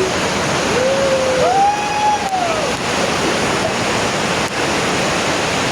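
Steady rush of a waterfall, with a person's voice calling out briefly about a second in.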